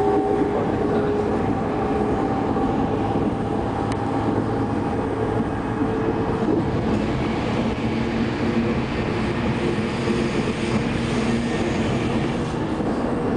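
Passenger train running at speed, heard from inside the carriage: a steady rumble of the wheels on the track with faint humming tones running underneath.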